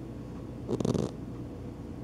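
A sleeping flat-faced Persian-type cat snoring, one short rasping snore about two-thirds of a second in, part of a breathing rhythm of roughly one snore every second and a half.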